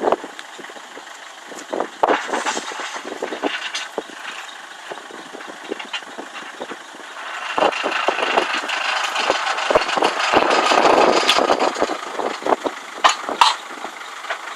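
Forklift engine running, with many short metallic knocks and clanks; the engine gets louder about halfway through and eases off near the end.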